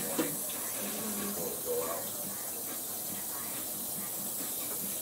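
Kitchen tap running into a sink as utensils are rinsed under it: a steady hiss of water, with faint voices in the background.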